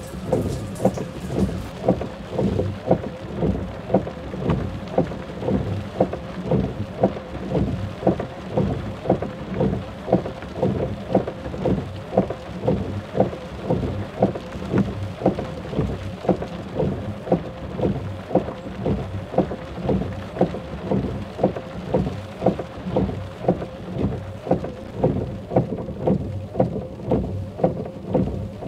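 Steady rhythmic thudding, about three beats every two seconds, over a continuous low rumbling noise.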